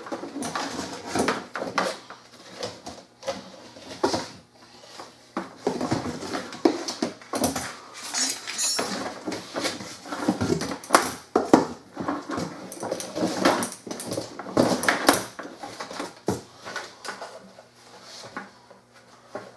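Parts being pulled out of a cardboard box by hand: a plastic tank, a hose and a power cord rustling, scraping and knocking against the cardboard and the pressure washer's plastic body in uneven bursts.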